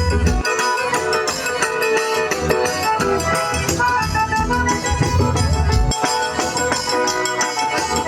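Forró band playing an instrumental passage between sung verses: accordion carries the melody over a steady, quick percussion beat.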